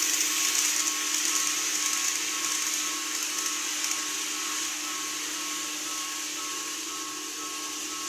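Model train running along the layout track, a steady motor whir with wheel-on-rail hiss, fading slowly as it moves away.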